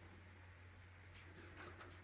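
Near silence: a steady low hum with a few faint clicks about a second in, from the capacitor head being handled into its slot.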